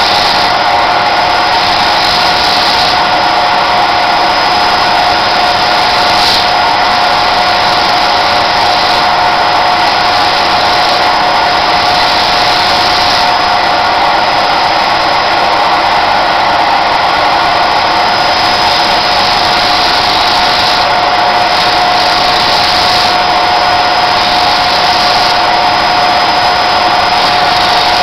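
Small high-speed rotary tool with a sanding disc running continuously while grinding sperm whale jaw bone: a steady whine over loud hiss, with a higher grinding hiss that comes and goes every few seconds.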